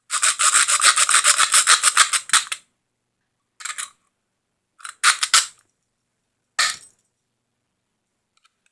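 A metal-cutting saw sawing through the release button of toy handcuffs: a quick run of rapid back-and-forth scraping strokes for about two and a half seconds, then three short bursts of strokes as the cut finishes.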